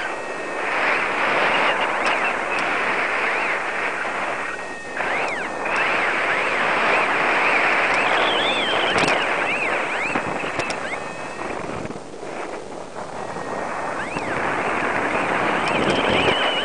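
Airflow rushing over the microphone of a paraglider pilot's head camera in flight. Through it comes a run of short rising-and-falling electronic chirps from a flight variometer.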